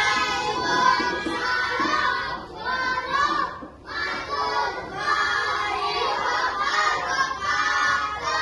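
Children singing a song together, in phrases with short pauses between them.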